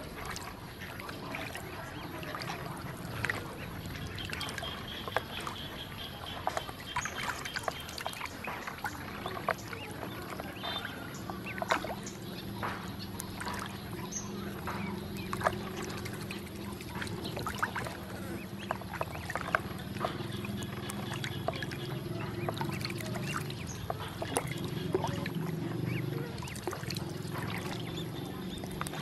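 Ducklings dabbling and splashing in a shallow plastic basin of water: many small splashes and bill clicks, with occasional duck calls.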